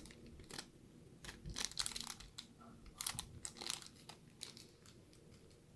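Faint crinkling and light clicks from small pieces of jewelry being handled, coming in two short clusters.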